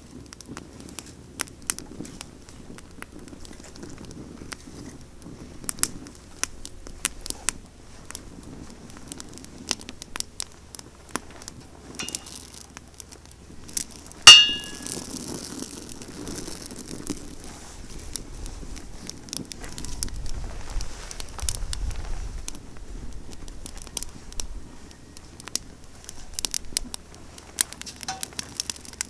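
Pruned pine branches burning in an open bonfire: irregular crackling and popping, with one much louder, sharp pop about fourteen seconds in. A low rumble comes and goes near the middle.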